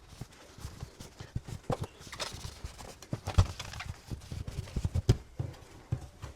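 Irregular light knocks and taps with some rubbing, from wiping the wet shower valve trim and surrounding wall dry by hand.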